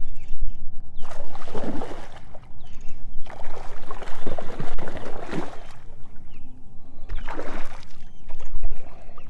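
Water splashing around a fishing kayak in three surges, over a low steady rumble.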